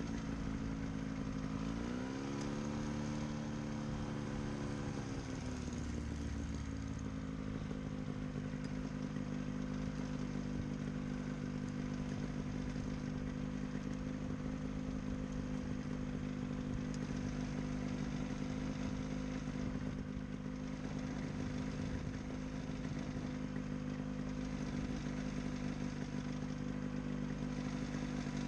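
Pterodactyl Ascender II ultralight's engine and propeller running in flight. About two seconds in the engine speeds up and the pitch rises, holds for a few seconds, then settles back to a steady cruising drone.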